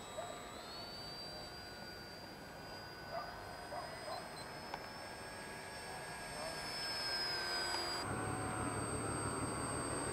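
Foam RC model Hawker Hurricane in flight: its electric motor and propeller give a steady high whine that steps up in pitch about half a second in. A louder, rushing noise joins near the end.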